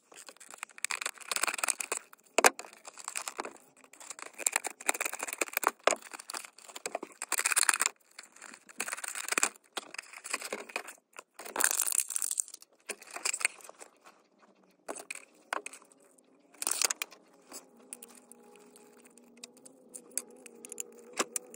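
Clear plastic blister packaging crinkling, crackling and tearing as it is pulled apart by hand, in irregular bursts with a few sharp snaps. The handling gets sparser and quieter over the last several seconds.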